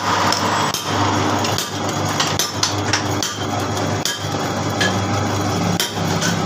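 Metal lathe running with a steady hum, over repeated sharp, irregular metallic knocks and clinks.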